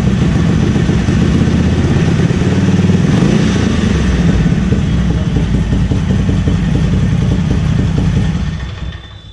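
Harley-Davidson Forty-Eight's air-cooled V-twin running steadily through an aftermarket Screamin' Eagle exhaust, a full but not very loud note. It is switched off about eight seconds in and the sound dies away.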